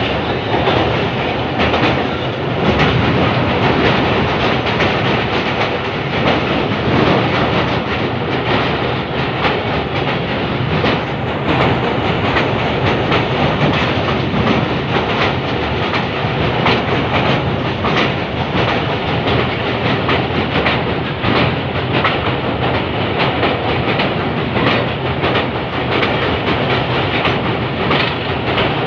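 Pakistan Express passenger train heard from on board as it runs across a steel truss bridge: a loud, steady rushing noise with the wheels clicking and clattering over the rails.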